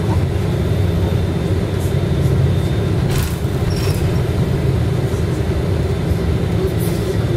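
Bus engine and road noise heard from inside the passenger cabin: a steady low drone. Two brief sharp clicks come about three and four seconds in.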